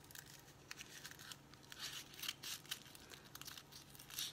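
Scissors snipping through the paper wrapper of a foil-wrapped bar of soap, with the wrapper crinkling as it is handled: a quiet run of short snips and rustles.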